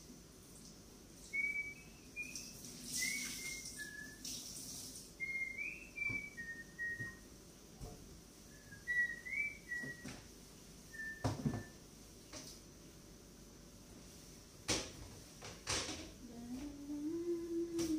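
A person whistling a short tune off-camera: a string of brief, gliding notes in a few phrases, stopping about 11 seconds in. Two short hissy bursts come early on, a few sharp knocks follow later, and a low note rises and falls near the end.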